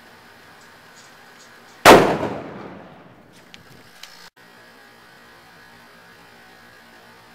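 A sealed bottle bursting under pressure from an MRE ration heater reacting inside it: one loud, sharp bang about two seconds in, its echo fading over about a second.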